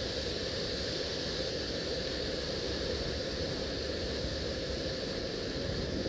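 Steady machinery drone with an even hiss over it, unchanging throughout.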